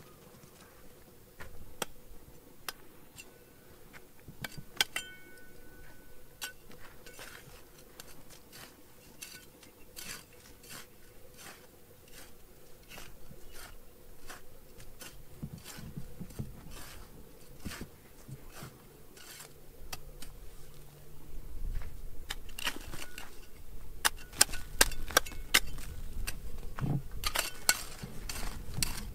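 Irregular clinks and taps of small hard objects knocking together, with a brief ringing tone about five seconds in. From about two-thirds of the way through, louder handling noise and denser clinking.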